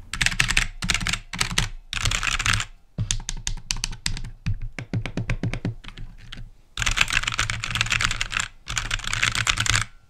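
Aula F2088 mechanical keyboard being typed on, in fast runs of key presses with sparser single key clicks between them. The runs come about two seconds in and again from about seven seconds in.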